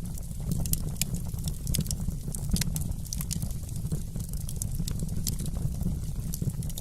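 Wood fire burning in a fireplace: a steady low rumble of flames with many small, irregular crackles and pops from the burning logs.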